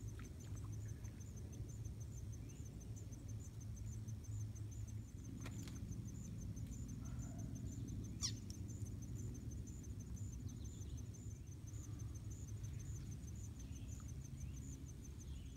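Pond-side outdoor ambience: an insect chirping in a high, steady pulse a few times a second over a low steady rumble, with a brief downward-sweeping chirp about eight seconds in.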